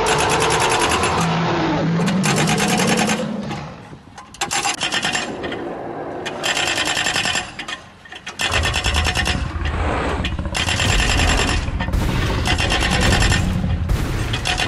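Excavator's vibratory compactor attachment hammering rapidly, in choppy stretches that cut in and out, with a low engine rumble joining about eight seconds in.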